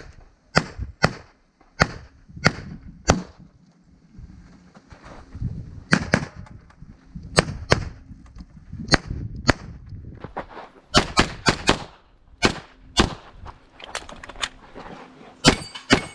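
Handgun firing a rapid string of shots, many in quick pairs, some twenty-odd shots with a short lull of about two seconds early on between strings.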